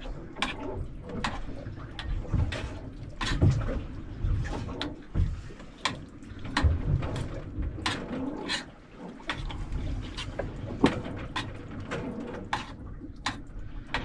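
Metal spoon stirring stew in a steel pot on a small stove, with irregular sharp clinks of the spoon against the pot over a low rumble in the boat's small cabin.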